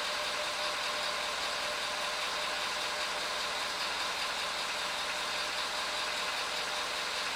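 Ford F-250 pickup's engine idling steadily, heard from inside the cab.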